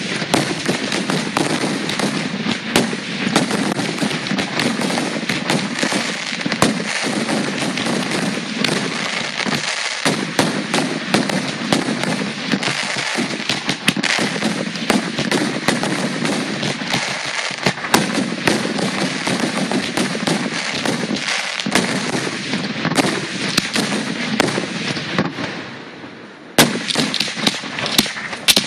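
Fireworks finale barrage: aerial shells launching and bursting in quick succession, a dense run of bangs and crackle. It eases off briefly near the end, then a loud bang starts it up again.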